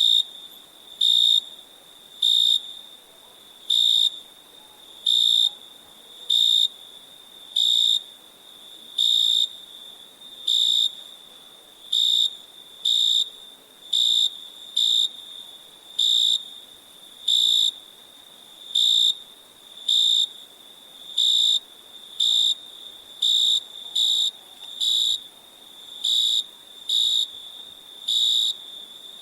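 Crickets chirping: a steady high trill under loud, evenly spaced chirps about every second and a bit, coming a little closer together in the last few seconds.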